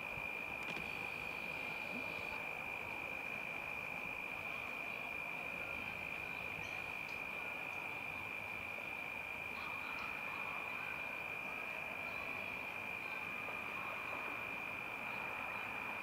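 A night-time chorus of calling insects: one steady, unbroken high-pitched trill, with a few faint short chirps here and there.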